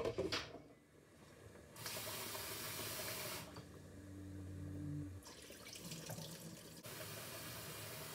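A glass pot lid clinks as it is set on at the very start, then a kitchen tap runs into a bowl of rice in a steel sink, rinsing the rice, in two spells with a short break between.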